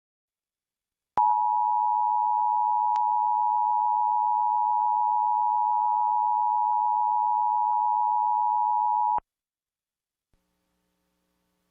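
Emergency Alert System attention signal: two steady tones sounded together (853 and 960 Hz), starting about a second in and cutting off sharply after about eight seconds. It marks the start of an emergency alert, here a required monthly test.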